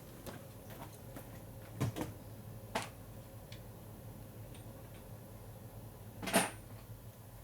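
Workshop handling sounds: a few separate knocks of metal tools or parts being set down or handled, about two and three seconds in, and a louder one about six seconds in, over a steady low hum.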